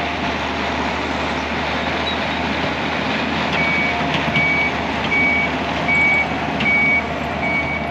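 Skid steer engine running steadily as the machine works dirt. About halfway through its backup alarm starts, beeping about six times at a little over one beep a second: the skid steer is reversing.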